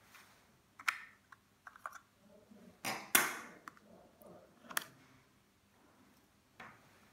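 Hands handling the monitor of a digital peephole viewer: scattered sharp clicks and clacks of its casing and back plate, with a louder scraping rustle about three seconds in.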